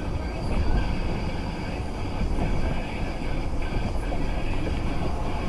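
A train rolling past with a steady low rumble.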